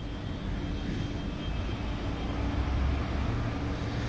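Steady low rumble and hiss of room noise from a seated congregation, with a faint steady hum underneath.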